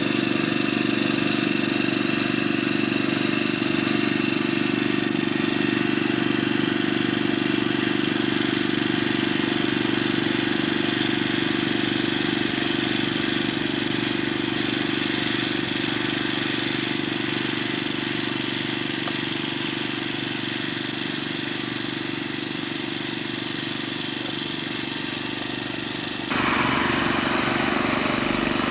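Small engine of a snow-clearing machine running steadily at a constant speed. Near the end the sound changes abruptly to a louder hiss.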